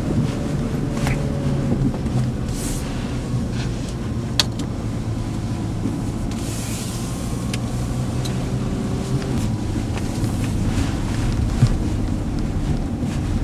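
Volkswagen Touareg SUV's engine running steadily at low revs as it crawls in low-range four-wheel drive, with a few short sharp clicks along the way.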